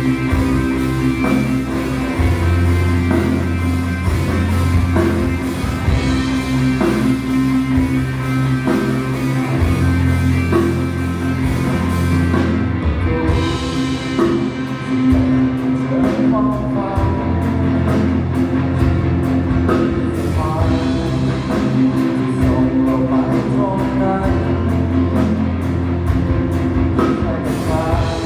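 A live rock band playing through a PA during a sound check: electric guitar, bass and drum kit, with some singing.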